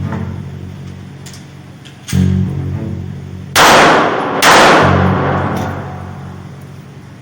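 Background music with a deep bass note repeating every few seconds, and two loud booming hits about a second apart midway that fade out slowly.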